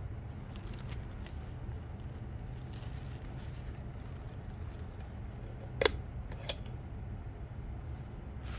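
Two sharp plastic clicks about two-thirds of a second apart, a little past halfway, from a Blythe doll's eye-changing mechanism switching her eye chips. Around them are faint ticks of the doll being handled over a low steady hum.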